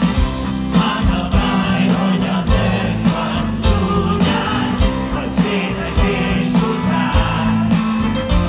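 Live rock band played loud through a concert PA and heard from the crowd: a steady drum beat, electric guitar and keyboard, with a singer.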